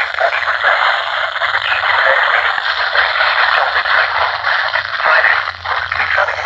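Steady loud static hiss from a weather-band radio receiver, with fine irregular crackle, where a weak NOAA Weather Radio signal is buried in noise.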